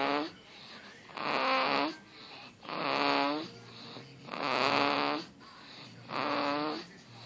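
A two-month-old baby snoring: a short pitched snore on each breath, about five of them, one every second and a half.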